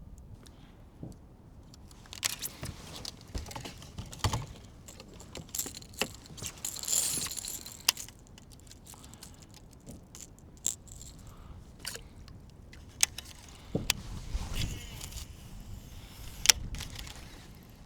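Irregular sharp clicks and light rattles of small hard objects being handled, with a stretch of hiss about seven seconds in and the loudest click near the end.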